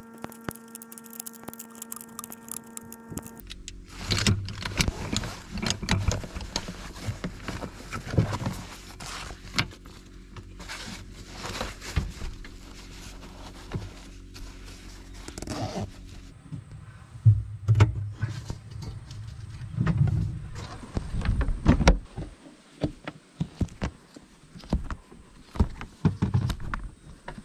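Camping gear being handled and packed into the back of a 4WD: fabric rustling, many small clicks and knocks, and a run of louder thumps in the second half. Near the end, a rubber latch on the camper trailer is fastened.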